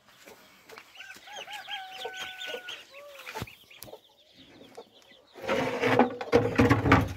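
Domestic poultry calling: a run of short rising-and-falling calls ending in one held note, with faint high peeping above them. About five and a half seconds in, loud rustling and knocking takes over.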